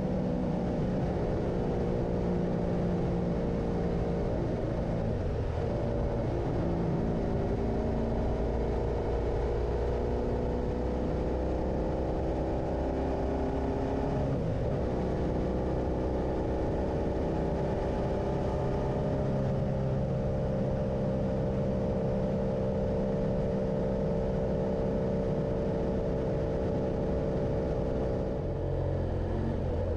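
Motorcycle engine running under way, its pitch rising slowly over long stretches, with breaks about 5, 14 and 28 seconds in, over a steady rushing noise.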